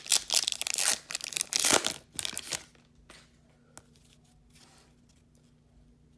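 A foil hockey card pack being torn open, loud crinkling tears for about two and a half seconds, then a few faint light clicks.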